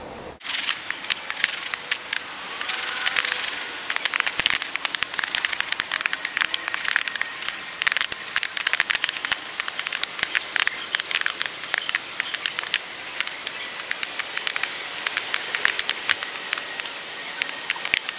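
Jiffy Pop popcorn popping inside its foil-covered pan over campfire coals: many quick, sharp pops coming thick and fast, over the scraping rustle of the pan being shaken.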